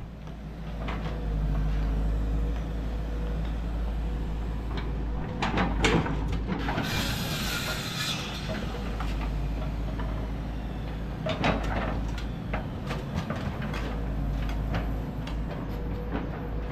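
Diesel engine of a 22-ton Volvo excavator running steadily while digging, with sharp metal knocks about six and twelve seconds in and a brief rushing hiss in between.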